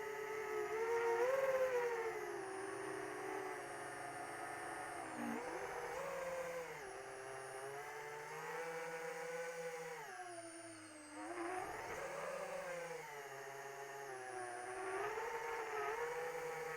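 Electric motor and propeller of an AtomRC Dolphin RC plane running, its pitch rising and falling with the throttle. The pitch drops low briefly about five seconds in and again near eleven seconds before climbing back.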